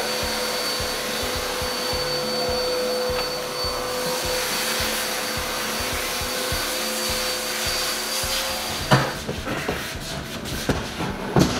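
Upright vacuum cleaner running, its hose wand drawn along the floor at the baseboard: a steady motor noise with a steady whine. It stops about nine seconds in, and a few knocks follow.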